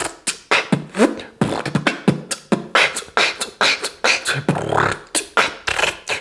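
Mouth beatboxing: a fast, even rhythm of sharp kicks, snares and inward-breathed handclap sounds, made with vape vapour held in the lungs. Some kicks carry a short falling pitch.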